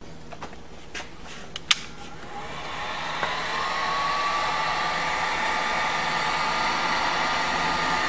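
A few handling clicks, then an electric heat gun's blower starts about two seconds in, builds up and runs steadily with a faint whine. It is blowing hot air onto heat-shrink tubing over a crimped wire splice to shrink it.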